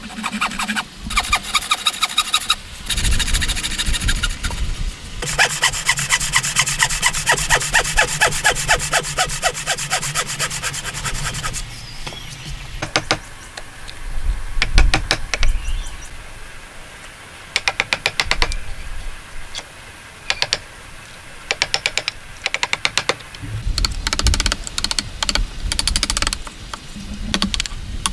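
Hand cutting of a timber joint. A wooden frame saw saws back and forth through the block in quick, even strokes. A wood chisel then pares and levers out the waste between the saw cuts, with a few sharp knocks.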